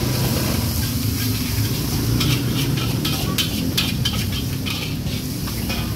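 Metal spatula stirring and scraping fried rice in a steel wok, with sizzling and a quick run of clinks against the pan about two to four seconds in. A steady low rumble runs underneath.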